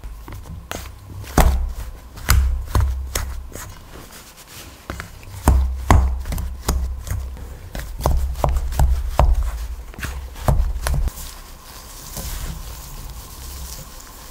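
Plastic spatulas cutting cubed butter into a flour and matcha mixture in a mixing bowl: irregular sharp taps and dull knocks against the bowl, one or two a second. About twelve seconds in the taps stop and a soft rustling hiss follows as a gloved hand rubs the butter into the crumbly mixture.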